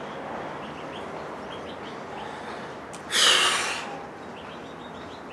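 One loud breath about three seconds in, lasting about a second, drawn with hands pressed together in prayer. Faint bird chirps sound before and after it.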